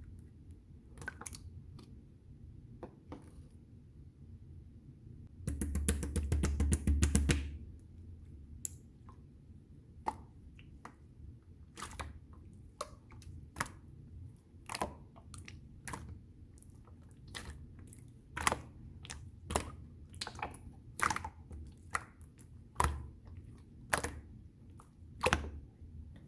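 Pearl slime being squished and poked by hand, making sticky clicks and pops. About five and a half seconds in comes a two-second run of rapid crackling clicks, the loudest part. After that single pops come every half-second to a second or so.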